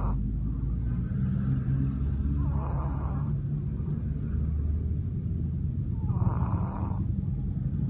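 Pug snoring in its sleep: slow snoring breaths about every three and a half seconds, over a steady low rumble.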